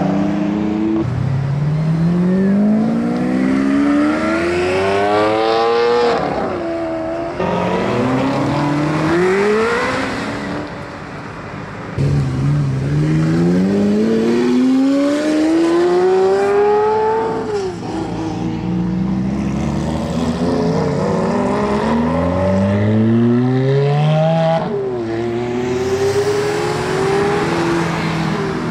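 Ferrari sports-car engines accelerating hard, the pitch climbing in long sweeps and dropping back at each gear change, again and again. About halfway through, the sound cuts abruptly to another car pulling away the same way.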